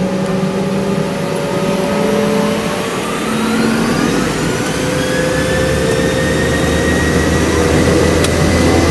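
Boeing 717-200's rear-mounted Rolls-Royce BR715 turbofan engines, heard inside the cabin, spooling up for takeoff with a rising whine. A deeper hum swells about six seconds in.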